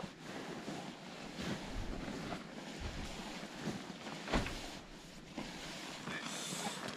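Wind blowing across the microphone, a steady rushing noise, with a few faint knocks and one sharper knock a little past the middle.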